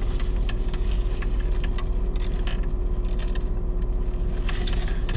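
Car air-conditioning blower running high with the engine idling: a steady rumble and hum inside the cabin, with scattered light clicks.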